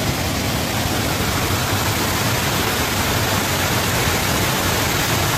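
Waterfall and its stream running: a steady, even rush of falling and flowing water.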